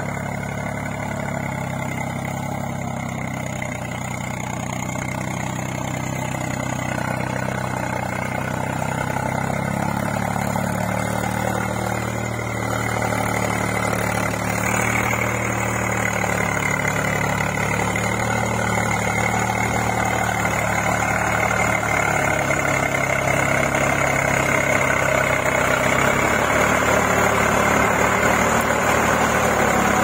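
Swaraj 735 FE tractor's three-cylinder diesel engine running steadily under the load of ploughing a wet paddy field, growing louder as the tractor comes close.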